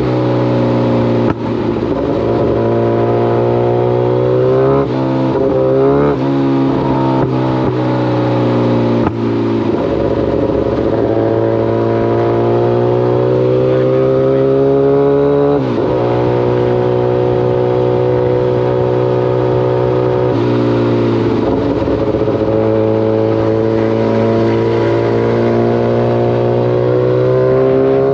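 Kawasaki ZX-14 sport bike's inline-four engine under way, its revs climbing and falling back several times as it accelerates and shifts gears, with a sharp drop in revs about halfway through.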